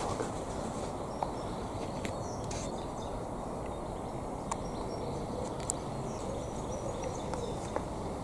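Outdoor ambience: a steady low background rumble with faint, sparse bird chirps and a few small clicks.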